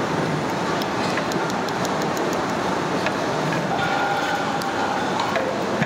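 Steady rushing noise, with a few light clicks in the first half and a brief steady tone a little past the middle.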